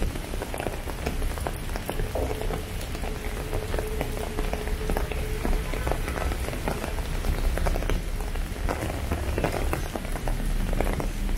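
Steady rain falling on wet pavement and street surfaces, a dense patter with individual drops ticking through it over a low rumble. A faint steady hum sounds for a few seconds from about two seconds in.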